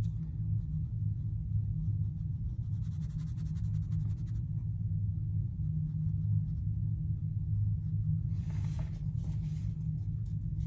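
Soft scratching of a water brush stroking watercolour paint onto paper, heard mainly around three seconds in and again near eight to nine seconds, over a steady low hum.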